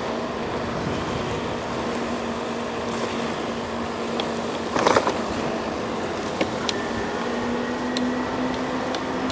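Riding noise on an electric bike: a steady rush of wind and tyres with a faint low motor hum, a short clatter about halfway through, and a few light clicks.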